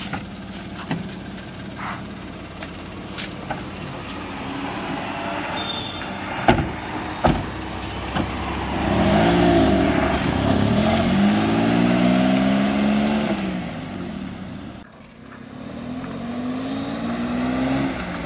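A motor vehicle engine running and changing speed, its pitch rising and falling several times, with a brief drop about two-thirds of the way through. Two sharp knocks come shortly before the engine gets louder.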